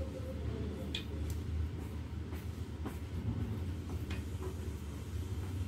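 A steady low machine hum, with a few faint light clicks over it.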